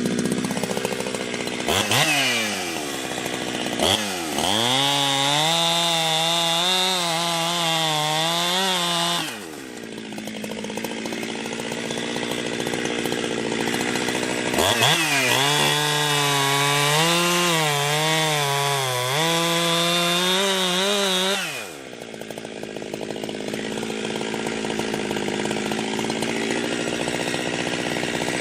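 Ported two-stroke Jonsered 2071/2072 chainsaw with an exhaust mod, revving up from idle and cutting wood at full throttle twice, its pitch wavering under load, dropping back to idle after each cut.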